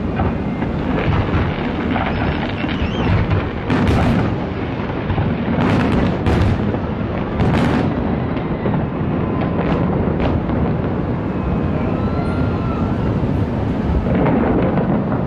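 Fireworks going off in a continuous rumble of booms, with sharper cracks about four, six and seven and a half seconds in.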